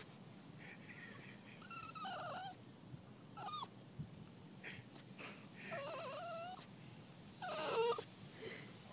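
Miniature pinscher whining in four wavering, high-pitched whimpers, the last the loudest, as it pines for an absent family member it is waiting for.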